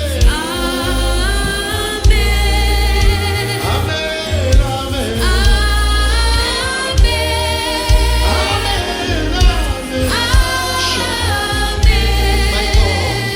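Gospel choir singing a praise-and-worship song with a band, over a steady bass line and drum hits.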